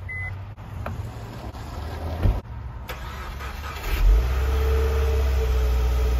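Subaru WRX's turbocharged flat-four engine cold-starting after sitting unused for over two months in the freezing cold: it fires about four seconds in and settles into a steady idle. Before that there is a short beep at the start and a single thump about two seconds in.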